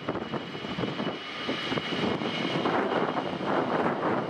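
Aircraft engine noise: a steady rush with a faint high whine held above it.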